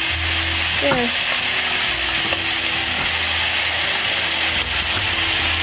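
Ground meat frying in a hot nonstick wok, a steady sizzle.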